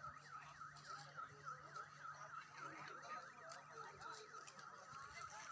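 An electronic alarm tone sweeping down and up about three times a second, faint under distant voices.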